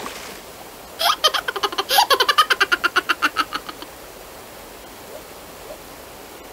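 Cartoon character laughing: a rapid, high-pitched string of ha-ha giggles, about eight a second, starting about a second in and trailing off before the four-second mark.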